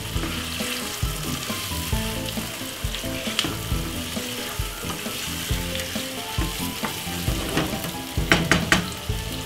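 Marinated chicken pieces and onions sizzling in hot oil in a non-stick frying pan while being stirred with a wooden spoon. Near the end come a few sharp clicks of the spoon against the pan.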